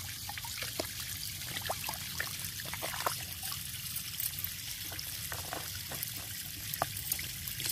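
Water in a bucket splashing and trickling as a plastic measuring cap is dipped and rinsed in it and the water swirled to mix in a liquid plant tonic, with small irregular splashes and drips.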